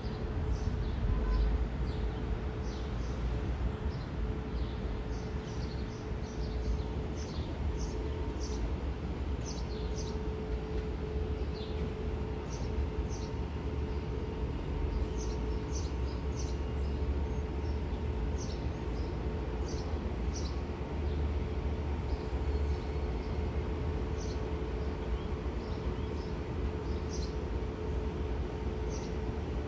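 A train at the station hums and rumbles steadily with a constant tone, while small birds chirp in quick, repeated high notes throughout.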